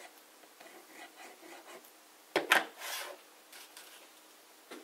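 A plastic glue bottle set down on the tabletop with a couple of sharp knocks a little over two seconds in, followed by the brief rub of a cardstock piece being picked up and handled.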